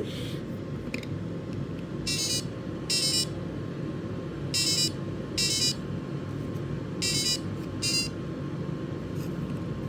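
Samsung Galaxy SmartTag's built-in speaker chirping: three pairs of short, high electronic chirps about two and a half seconds apart, as the tag powers up on a freshly fitted CR2032 battery.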